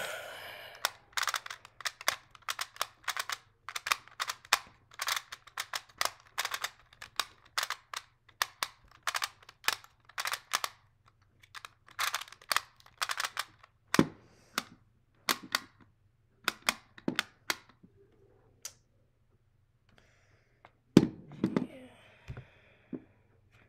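Rubik's Clock puzzle being solved by hand: fast runs of sharp clicks as its dials are turned and pins pushed, thinning out after about fourteen seconds. About twenty-one seconds in comes the loudest single knock as the puzzle is set down on the table.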